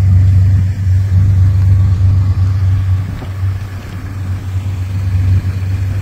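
A vehicle's engine idling: a loud, steady low rumble.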